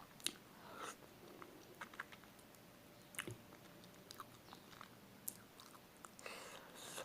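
Close-up chewing and biting on spicy chicken feet, with scattered small wet clicks and smacks. A longer hissing sound comes about six seconds in.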